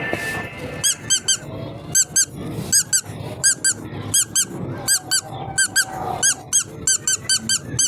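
A rapid run of short, high-pitched squeaks, bunched in quick pairs and triples, each squeak rising and falling in pitch.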